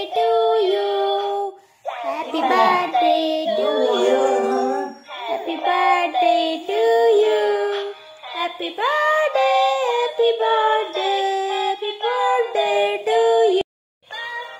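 Electronic dancing cactus toy playing a song through its small speaker: high-pitched, sped-up synthetic singing to a melody. The song breaks off abruptly near the end, and another tune starts.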